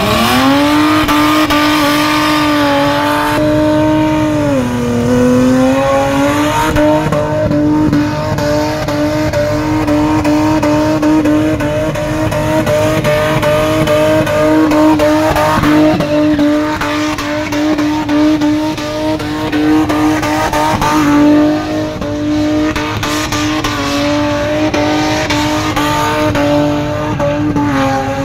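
Car doing a burnout, its engine held at high, steady revs while the rear tyres spin and smoke. The revs sag briefly about four seconds in, then climb back and hold, wavering a little.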